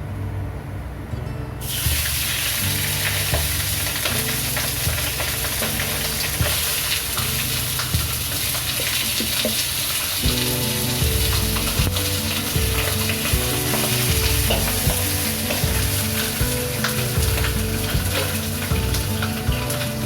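Food sizzling in hot oil in a pan, starting suddenly about a second and a half in, over background music.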